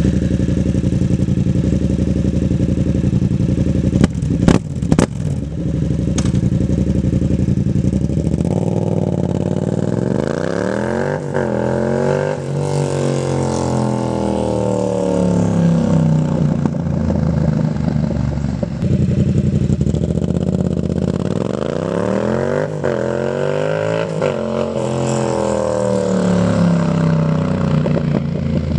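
Yamaha FZ-07 (MT-07) 689 cc parallel-twin engine idling, with a few sharp clicks about four seconds in. About eight seconds in it pulls away, the exhaust note climbing through the gears with a drop at each shift, and it accelerates hard again near the end.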